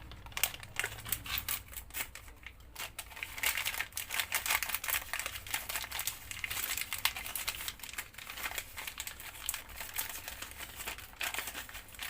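Crinkling and rustling of packaging as small parts are handled, with many small irregular clicks.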